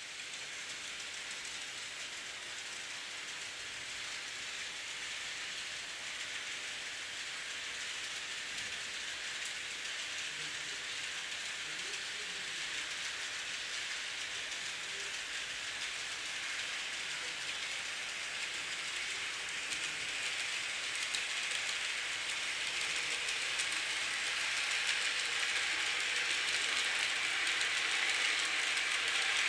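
Märklin H0 model freight train with container wagons rolling along the track: a steady hiss and clatter of small wheels on metal rails that slowly grows louder as it draws nearer.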